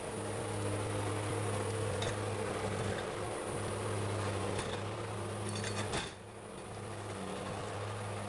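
Heavy diesel forestry machine engine running steadily, with a few metallic clanks about two seconds in and again around five to six seconds in. The sound drops and changes just after the six-second mark.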